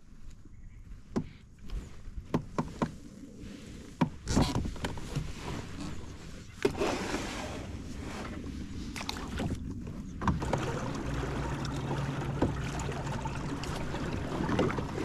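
Water sloshing and splashing around a kayak, with scattered knocks and clicks in the first few seconds and a steady low hum joining in the second half.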